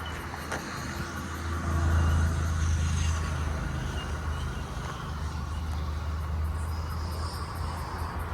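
Eight-car Oscar H-set electric train at the platform, a low steady rumble and hum that swells about two seconds in.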